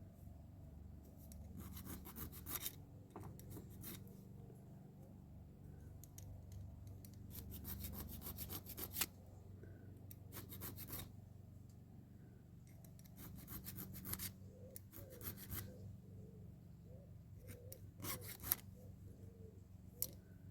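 A hand file rasping on the end of a soft metal pin in a diecast toy, to round it off. The strokes come in short intermittent runs with pauses between them.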